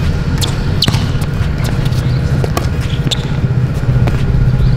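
A basketball bouncing on an outdoor court, a few separate sharp thuds during three-point shooting, over a steady low rumble.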